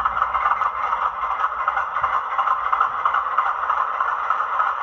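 A sound-fitted OO gauge model Class 50 diesel locomotive's decoder playing a steady, rough engine idle through its small onboard speaker, thin and without bass.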